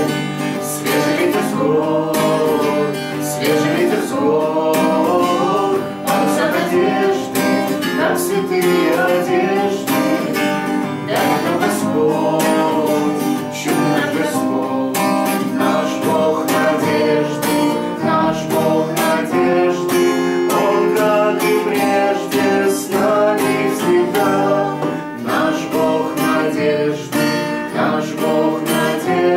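Acoustic guitar strummed steadily, accompanying a singing voice.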